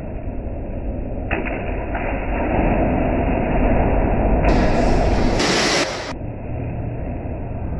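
Splashing water and the steady rumbling din of an indoor swimming pool as children jump in, with a louder stretch of splashing about midway.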